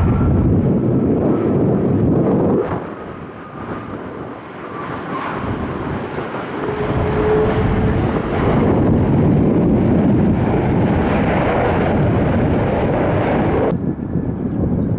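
Airliner engines passing loud and steady, with wind on the microphone. The sound dips a few seconds in, swells back up, and its hiss cuts off suddenly near the end.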